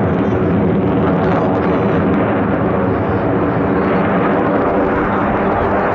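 Loud, steady jet noise from a formation of six Sukhoi Su-35S fighters flying overhead, their twin turbofan engines running without letting up.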